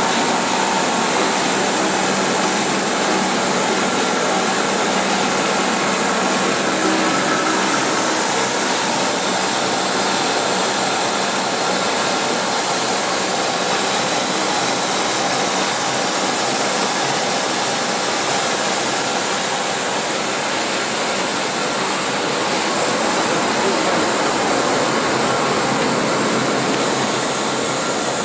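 HFT-1300 five-roller solventless silicone coating machine running: a steady, even machine hiss and whir from its rollers, drive motors and moving paper web, with no pauses or changes.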